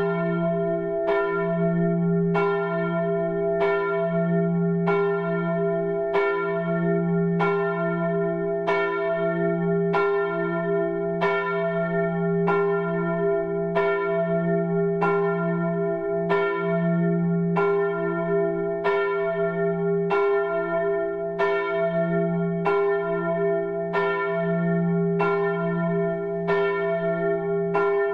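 A single church bell tolling steadily, about five strokes every six seconds, each stroke at the same pitch and ringing on into the next.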